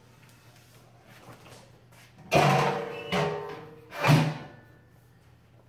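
Steel patio heater being set upright on the floor: three metallic clunks about a second apart, starting about two seconds in, the first and last loudest. Each clunk leaves the steel housing ringing briefly.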